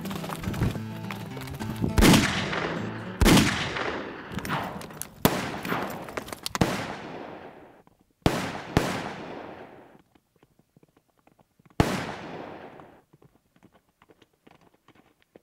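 About nine gunshots fired from horseback at balloon targets, as in cowboy mounted shooting: sharp cracks spaced one to two seconds apart, each with a long echoing tail, the last one alone near the end. Background music plays under the first two seconds.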